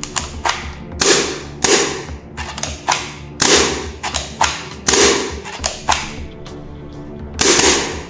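Pump-action toy shotgun for 6 mm BBs (CA880) being racked repeatedly: about five rasping strokes of the plastic forend, with sharp clicks between them. Background music plays underneath.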